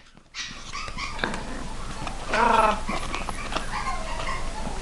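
Shih tzu–maltese puppies whining and yipping as they play, with one louder yelp about halfway through.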